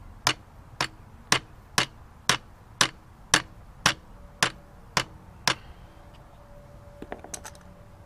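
Hammer blows on metal during strut and spring removal: eleven sharp, evenly spaced strikes, about two a second, then a few lighter taps near the end.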